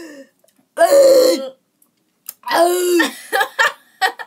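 A person groaning and gagging in a few strained vocal outbursts, a reaction to the sourness of a mouthful of raw lemon.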